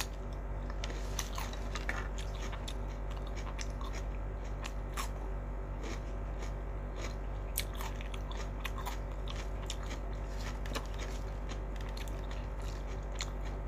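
Close-up mouth sounds of a person chewing and biting into skin-on fried potato strips, with scattered small crunches.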